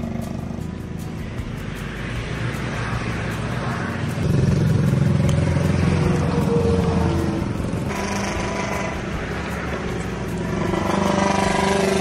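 A motor engine running steadily, getting louder about four seconds in and easing off after about three seconds, with another swell near the end.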